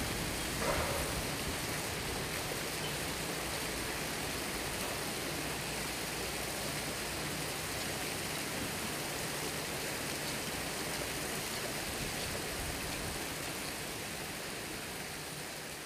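Steady rushing of river water at a lock, an even hiss that eases off slightly near the end, with one small knock about a second in.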